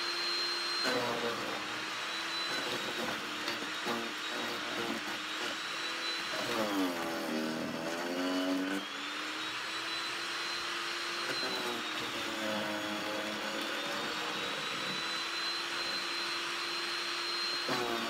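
Harbor Freight electric chipper shredder running with a steady whine while leafy branches are pushed into its hopper. About six seconds in, and again a few seconds later, its pitch sags and recovers as the motor labours on a branch.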